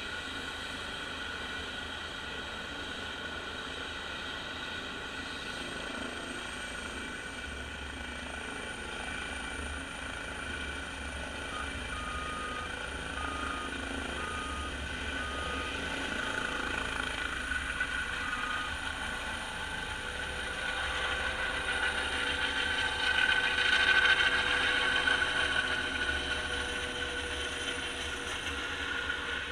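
Airbus H135 (EC135) helicopter taking off: the steady whine of its turbine engines and rotors swells to its loudest about 24 seconds in as it climbs past, then eases as it flies away.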